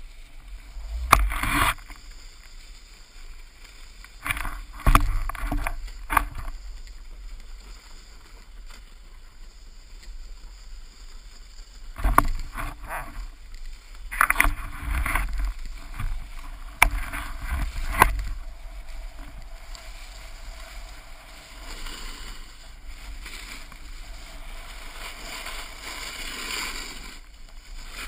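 Snowboard sliding and scraping over snow, heard through a pole-mounted GoPro: a steady rushing hiss broken by clusters of sharp knocks and bumps in the first two thirds, then a smoother hiss near the end.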